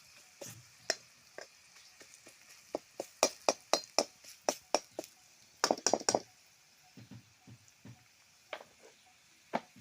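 Sharp clinks and knocks of a utensil against a cooking pot or pan, in a quick run of about four a second some three seconds in and a tight loud cluster near six seconds, with softer taps between.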